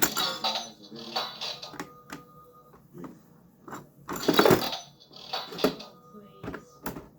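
Ryan toy vending machine being worked: a string of sharp plastic clicks and rattles, with a louder clattering rattle about four seconds in.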